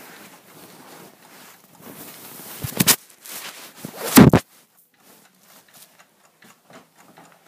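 Phone camera being handled and set in place: rustling and scraping, with two loud knocks about three and four seconds in. After that, a mechanical clock ticks faintly and evenly.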